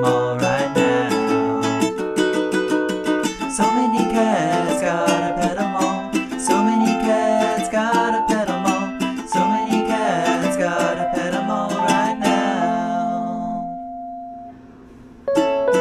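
Instrumental ukulele music, plucked and strummed with a bright melody over chords. Near the end it settles on a held chord that dies away, then the playing starts up again.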